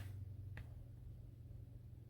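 Quiet room tone with a steady low hum and one faint click about half a second in.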